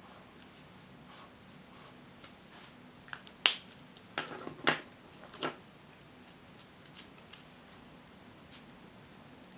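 Faint strokes of a highlighter on notebook paper, then, about three seconds in, a cluster of sharp clicks and short scrapes as the highlighter is put down and a pen picked up, followed by a few light ticks.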